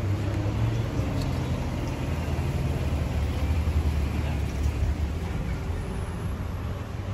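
Street traffic noise: a steady low rumble of passing vehicles.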